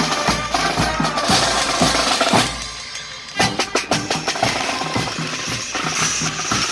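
Marching band playing, brass over snare and bass drums with a deep held bass note; about two and a half seconds in it drops away briefly, then the drums carry on with a quick cadence.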